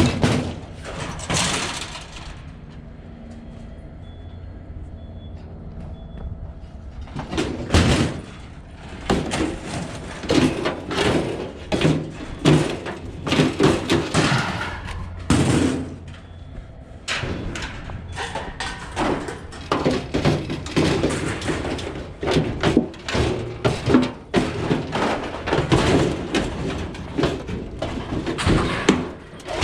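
Sheet-metal clanking and rattling as a clothes dryer is worked on for scrap: a burst of knocks, a quieter few seconds, then a long run of rapid knocks, bangs and rattles.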